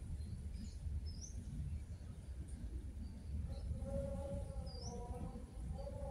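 Outdoor ambience: a steady low rumble with a few short, high, rising bird chirps, one about a second in and another near the end. From about halfway, a faint wavering tone hums in the background.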